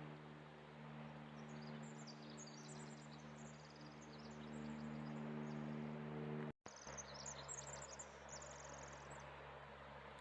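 A small songbird singing high, rapid trilling phrases, twice, over a faint steady low hum. The sound drops out completely for an instant about six and a half seconds in.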